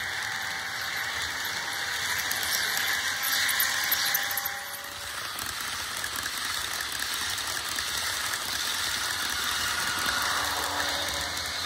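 HO-scale model train running on track, the wheels giving faint, thin squealing tones over a steady rolling noise.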